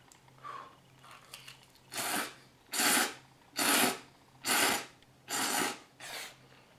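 Ramen noodles being slurped: a run of six loud, hissy slurps, each about half a second long and coming roughly once a second, starting about two seconds in.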